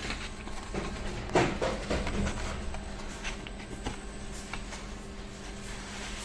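Steady machine hum with scattered knocks and clatter, the loudest knock about a second and a half in.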